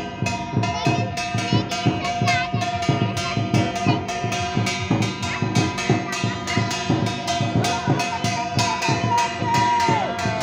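Drums and clashing hand cymbals playing a fast, even beat of about four strokes a second, with a steady high held tone underneath.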